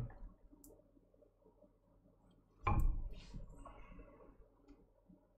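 A single dull knock about two and a half seconds in, fading quickly, with faint handling sounds before and after it.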